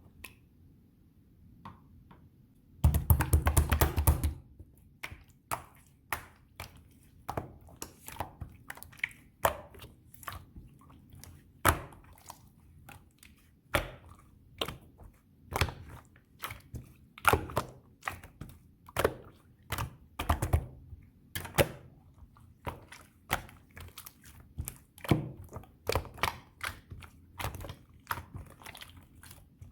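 Light pink slime being played with by hand: a dense burst of crackling about three seconds in, then a long run of sharp clicking pops as it is pressed and squished, about one or two a second.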